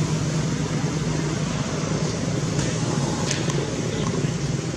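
A steady mechanical hum with a constant low drone and a broad hiss, unchanging throughout.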